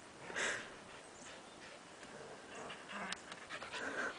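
Heeler dog panting faintly, with one louder breathy puff about half a second in.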